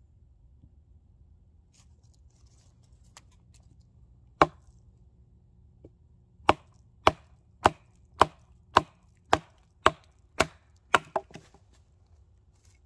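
Wooden baton striking the spine of a large bushcraft knife set in a log round, splitting the wood: one knock, then after a pause about ten steady blows, roughly two a second.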